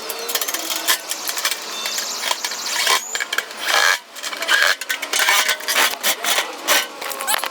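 Dense, irregular metallic clinking and clatter from assembly parts and screws being handled.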